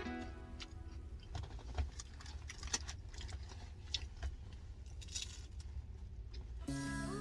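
Close-up eating sounds: irregular clicks, crackles and crunches of chewing and handling food, over a steady low rumble.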